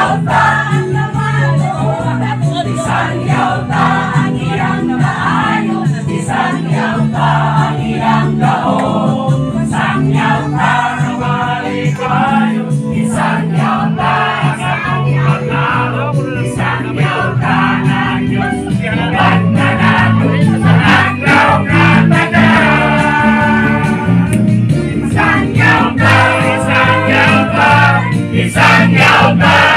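A song with singing voices over instrumental backing, getting a little louder about two-thirds of the way in.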